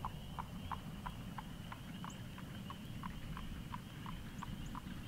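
A small animal chirping faintly and steadily, about three short chirps a second, over a faint high steady hum and low wind rumble.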